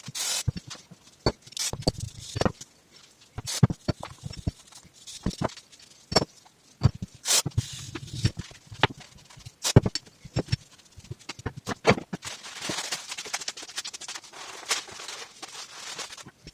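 Cleaning a 35 mm Showa moped fork leg on a workbench with brake cleaner and a brass bristle brush: scattered sharp clicks and knocks from handling the metal leg, with a longer stretch of hissing, scrubbing noise about twelve seconds in.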